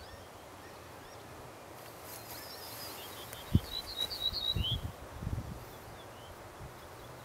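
Male ortolan bunting singing: a faint phrase of quick high notes a little over two seconds in, then a clearer phrase of about five repeated notes ending on a lower note, around four seconds in. A low thump just before the clearer phrase.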